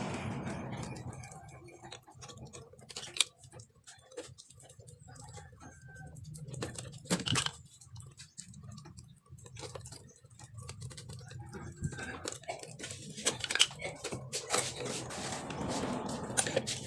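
Small scattered clicks and knocks of hand-tool work on metal: a zinc replacement gearbox being fitted and screwed back onto a small electric motor with a screwdriver, with a few sharper knocks. A faint low steady hum sits underneath.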